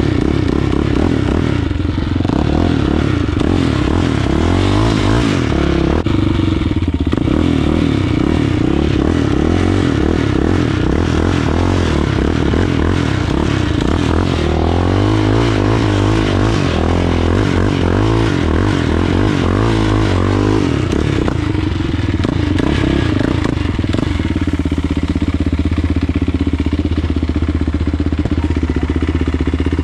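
Yamaha Raptor ATV's single-cylinder four-stroke engine revving up and down repeatedly as the quad is spun and slid in loose dirt.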